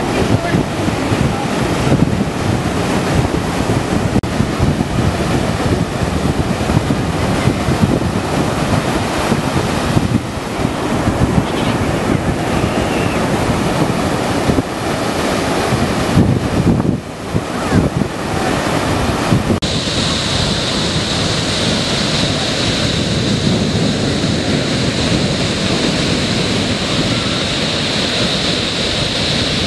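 Ocean surf breaking and washing up a sandy beach, a steady loud rush of water, with wind buffeting the microphone. About two-thirds of the way through the wash turns abruptly brighter and hissier.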